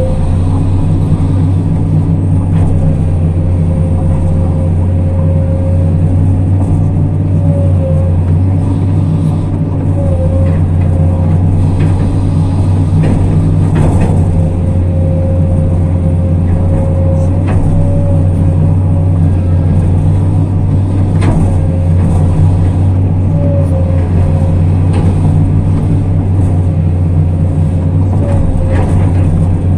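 Excavator's diesel engine running steadily under load, heard from inside the cab, with a thin hydraulic whine that dips briefly now and then as the boom and bucket work. A few sharp knocks stand out over the engine.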